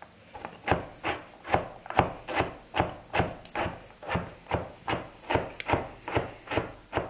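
Large kitchen knife chopping diced carrot finer on a cutting board: steady, evenly spaced blade strikes, about two and a half a second, starting about half a second in.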